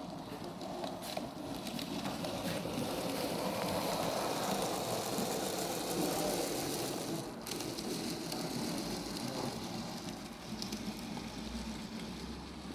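OO9 narrow-gauge model train running along the track, a steady wheel-and-motor rattle that swells and then fades as it passes.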